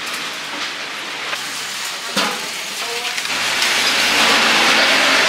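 Steady sizzling hiss of skewered food grilling, swelling louder about three seconds in. A single sharp knock about two seconds in.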